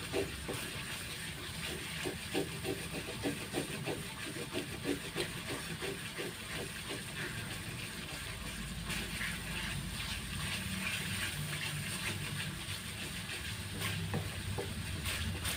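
Ground spice paste sizzling as it fries in a wok, with a wooden spatula stirring and scraping through it, a few strokes a second over the first several seconds.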